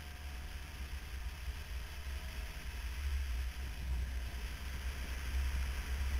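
Wind buffeting the microphone on a moving scooter, an uneven low rumble over a steady hiss of road and wind noise.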